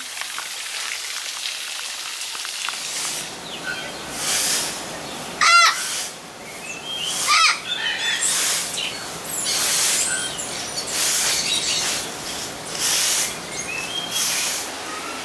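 Parrots calling in an aviary: a string of noisy calls about a second long each, starting a few seconds in. Two loud pitched calls come near the middle, the first the loudest, with small chirps between.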